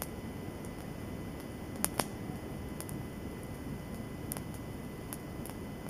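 Wood campfire burning, crackling with scattered sharp pops, two of them close together about two seconds in.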